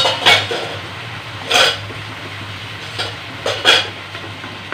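Metal spoon and slotted spatula clinking and scraping against a steel bowl and a nonstick kadhai as curd is stirred into onion masala: a handful of separate sharp knocks over a low steady hum.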